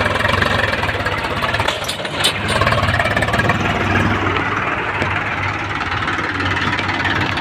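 Swaraj 735 FE tractor's three-cylinder diesel engine running steadily while hauling an overloaded trolley of soil. A couple of brief knocks come about two seconds in.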